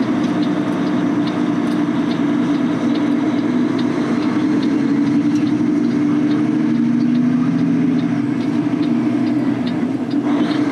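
Semi truck's diesel engine running steadily at low speed, heard from inside the cab, with a light ticking repeating about twice a second.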